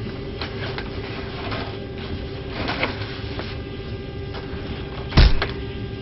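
Cardboard box rustling and knocking as it is shoved into an aircraft overhead bin, then a loud thump a little after five seconds in as the bin lid is pushed down hard on it. A steady hum runs underneath.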